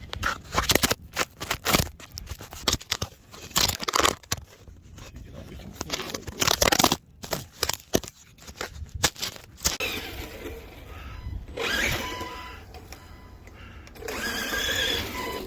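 Redcat Shredder 1/6-scale electric RC monster truck being run: a string of sharp knocks and clatter, then from about ten seconds in a steady rushing noise with a faint motor whine.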